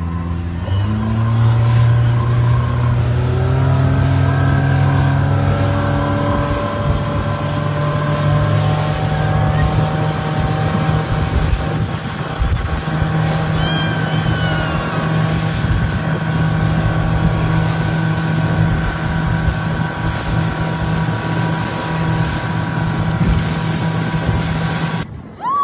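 Motorboat engine speeding up over the first few seconds, then running steady at speed.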